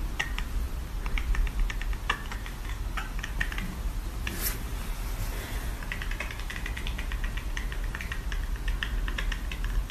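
A cat chattering at prey it can't reach: irregular runs of quick little clicks and chirps, thickest in the second half, over a low steady hum.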